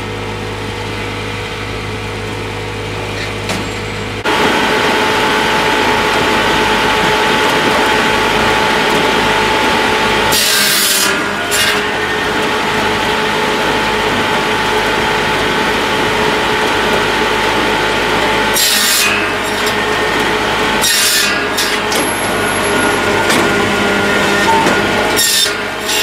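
Tractor-driven firewood processor at work: the Massey Ferguson 1020 tractor's engine runs steadily, then about four seconds in the processor's saw starts cutting slab wood, a loud continuous cutting noise broken several times by short, sharp bursts of noise.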